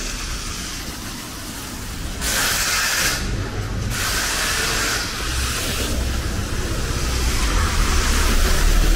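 Wet-street traffic noise: two short, sharp bursts of hissing about two seconds and four seconds in, and a low vehicle rumble that grows louder towards the end.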